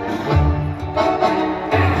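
Instrumental music with a steady bass line.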